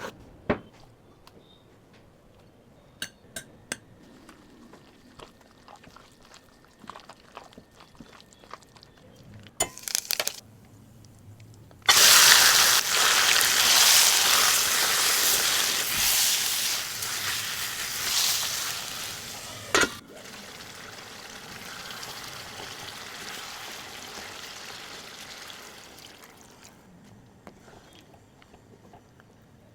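A few light clicks and taps of kitchen utensils, then a loud sizzle in a hot cooking pan that starts abruptly about twelve seconds in and slowly dies down.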